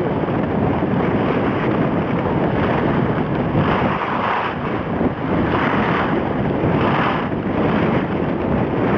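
Wind buffeting the camera's microphone, a loud steady rumbling rush. A few short swells of higher hiss come around the middle.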